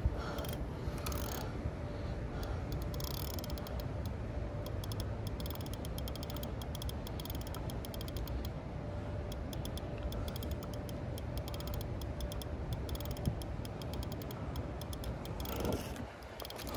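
Spinning reel clicking rapidly and steadily while a hooked catfish holds the line from under submerged trees.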